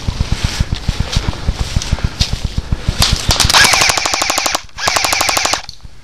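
Airsoft electric gun firing on full auto: two rapid rattling bursts about three seconds in, the first just over a second long and the second a little shorter, with a brief gap between.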